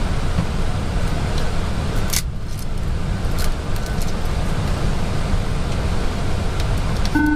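Steady rushing cockpit noise of an Airbus A320 in descent, heaviest in the low end. There is a sharp click about two seconds in, and a short beep starts just at the end.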